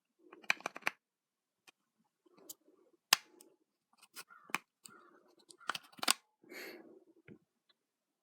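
Small screwdrivers and a plastic toy being handled: scattered sharp clicks and knocks with a few short scrapes, as a screwdriver small enough for the battery-cover screw is sought.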